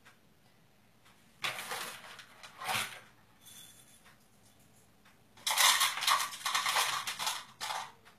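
Small dishes and utensils handled on a tray and mat, scraping and rattling in short bursts: one about a second and a half in, a brief one near three seconds, and a longer, louder stretch from about five and a half seconds to near the end.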